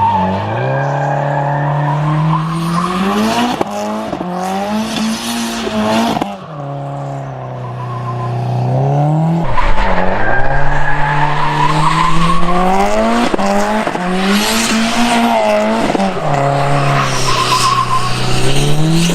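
Subaru WRX's turbocharged flat-four held at high revs through all-wheel-drive donuts, with tyres squealing and skidding. The revs drop sharply about four times and climb straight back.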